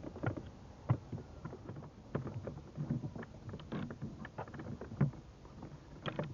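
Irregular metallic clicks and knocks as the ground cable's clamp is fitted onto the car battery's negative post and tightened with a hand tool.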